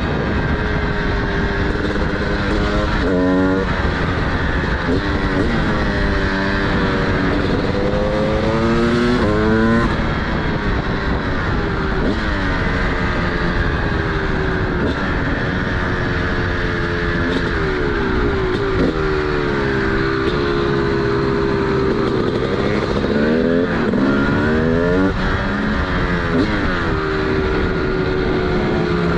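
TM SMR 300 two-stroke supermoto engine with a DBR exhaust, under way: the revs rise and fall over and over, with quick climbs broken by gear changes and long falling glides as it comes off the throttle.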